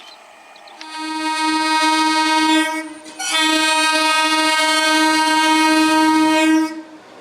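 Train horn sounding two long blasts, the first about two seconds and the second about three and a half seconds, with a brief break between them.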